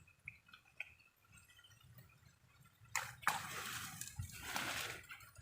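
Water splashing and sloshing in a small stream, starting about three seconds in after a quiet stretch with faint short chirps.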